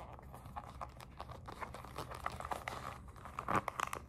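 Soft rustling and crinkling of a small leather jewellery pouch being handled and squeezed in the hands, with a louder cluster of crackles about three and a half seconds in.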